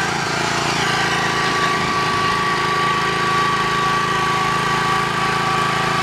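Earth auger's engine running steadily, with a constant high whine over its hum.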